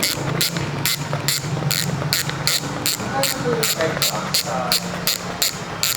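Freehub ratchet of a Speed One Pilot 6-pawl bicycle rear hub clicking as the hub is spun, a run of sharp clicks several a second, over background music.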